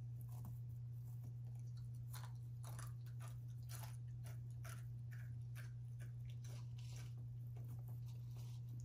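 Scattered small clicks and crackles of hands handling a craft pulley made of popsicle sticks, drinking straws and wooden rods, mostly from about two seconds in, over a steady low hum.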